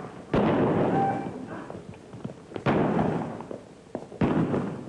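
Three loud revolver shots about two seconds apart, each followed by a long echoing decay, with a few fainter pops between them.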